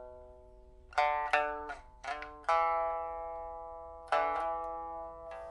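A 2006 Man Ruixing pipa of Cochinchina rosewood with a newly replaced soundboard and frets, plucked in a slow phrase of single notes. The last notes ring away for about a second, then short groups of plucked notes come about a second in and near four seconds in, with one long note left ringing in between.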